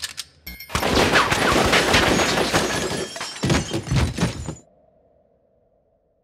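Sound-design effect over a title card: a sudden hit, then about four seconds of dense crackling with many sharp impacts, ending in a faint steady hum that fades away.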